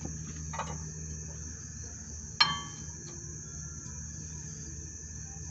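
A single sharp metallic clink with a short ring about two seconds in, a tool or brake part knocking against metal. Crickets chirp steadily behind it.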